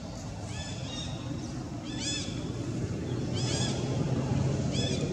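A series of short, high, arching animal calls, about five of them spaced irregularly, over a low rumble that grows louder toward the end.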